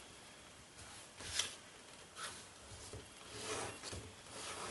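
Faint rustling and rubbing of kraft paper as it is folded and creased by hand, in a few soft brushing strokes.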